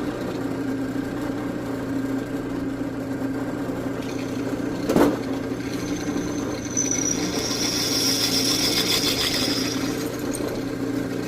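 Electric drill motor running steadily while drilling holes in a steel chainsaw guide bar. There is a sharp knock about five seconds in, and a high squeal from about seven to ten seconds in as the bit cuts the metal.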